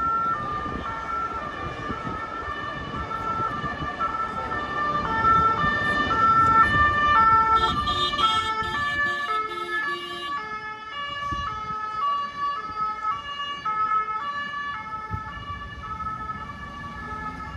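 Two-tone emergency vehicle siren alternating between a high and a low note about twice a second, over street traffic. It grows louder to a peak about six or seven seconds in, then fades as it moves away.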